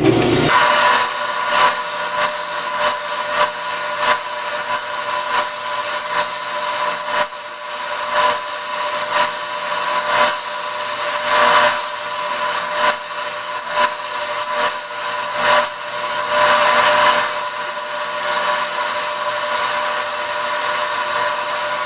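Band saw running and cutting through a wood board, making a series of relief cuts and then the cut along the line. A steady whine sits under the rasp of the blade in the wood, which swells and eases from cut to cut.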